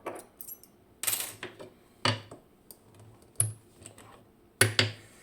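A lock cylinder and tools being handled: a handful of sharp, irregular clicks and knocks of small hard parts, typing-like, as the picked lock is readied for disassembly.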